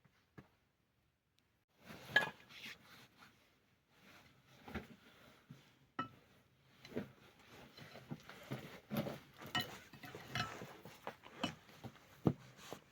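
Hard objects being handled: irregular clinks and knocks, a few with a brief ring, starting about two seconds in and coming thick and fast from then on.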